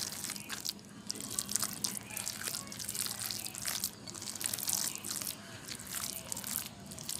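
Wet squelching and squishing of a bare hand kneading raw minced-chicken kabab mixture, a soft paste bound with gram flour and onion paste, in a plate. It comes as a quick, irregular run of small sticky smacks and crackles.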